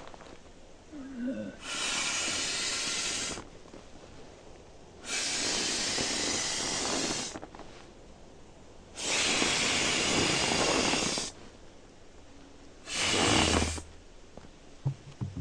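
A person breathing loudly: four long, hissing breaths about four seconds apart, the first three lasting about two seconds each and the last one shorter.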